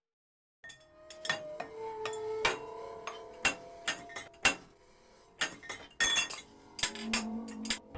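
A quick, irregular run of sharp clinks and knocks, some leaving short ringing tones, starting about a second in.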